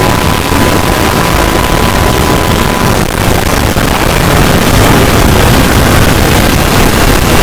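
Loud, harsh, distorted noise with no clear pitch, with a steady beep-like tone that cuts off about three seconds in.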